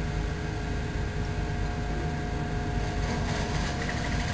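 Combilift truck's engine running steadily, a low rumble with a constant hum.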